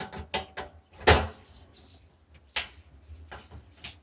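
Sharp clicks and knocks of parts being pried and pulled off a PC monitor being dismantled by hand, about five separate knocks with the loudest just after a second in.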